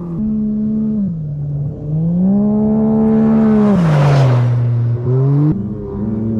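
Side-by-side UTV race car's engine pulling hard at steady high revs as it passes close on a dirt course, with a hiss of tyres and thrown dirt as it goes by. The engine pitch drops about 4 s in as it passes. Near the end it cuts abruptly to another race vehicle's engine running in the distance.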